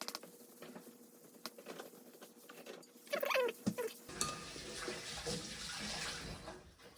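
Light kitchen clicks and knocks, then water running for about two and a half seconds from about four seconds in.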